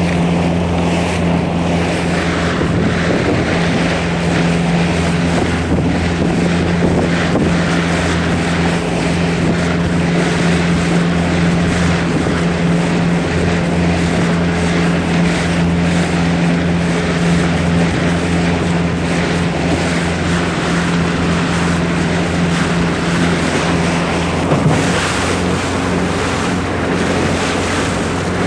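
Small fishing boat's engine running steadily underway, a low even hum under heavy wind buffeting on the microphone and water rushing past the hull. The engine note wavers briefly near the end.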